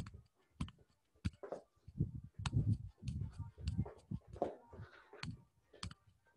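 Footsteps of quick side-step shuffling across a floor: soft, irregular thuds mixed with sharp clicks.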